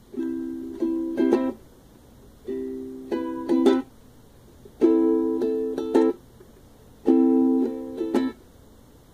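Ukulele strummed chords: four phrases, each a ringing chord followed by a few quick strums, with short pauses between.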